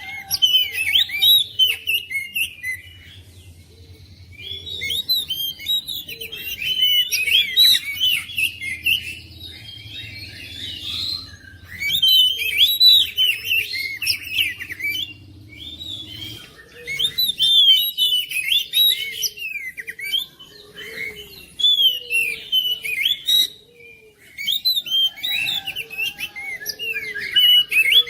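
Oriental magpie-robin (kacer) singing: bouts of rapid, varied whistles and chirps broken by short pauses.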